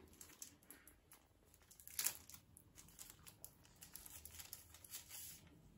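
Faint crinkling and small plastic clicks as a new mobile phone and its packaging are handled, with one sharper click about two seconds in.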